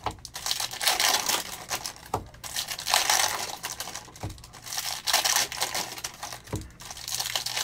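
Foil trading-card pack wrappers crinkling and tearing as packs are ripped open by hand, with cards shuffled in the hands and a few light knocks, about 2, 4 and 6.5 seconds in.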